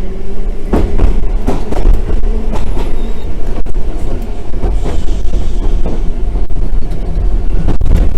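Randen tram running along its track: a steady low rumble with irregular sharp knocks and clacks from the wheels on the rails.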